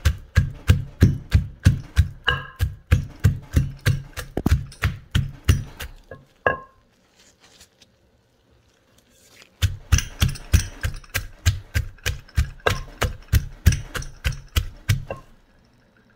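Wooden pestle pounding long beans and shredded papaya in a clay mortar, about three dull thuds a second. The pounding stops for about three seconds around six seconds in, then starts again until shortly before the end.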